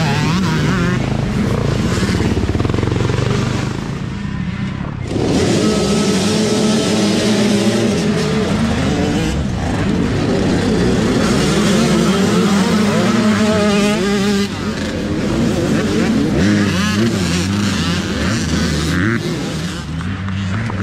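Several youth dirt bikes accelerating hard off the start and riding past close by, their engines revving up and down in pitch.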